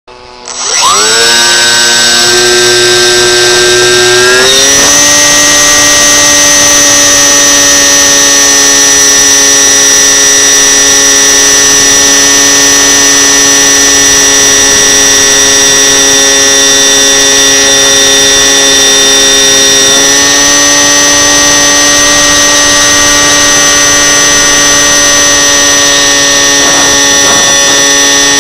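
RC model airplane's motor heard close up from the onboard camera, loud and whining. It winds up in the first second, steps to a higher steady pitch about four seconds in as the throttle opens for takeoff, then runs steadily, with a slight shift in pitch about twenty seconds in.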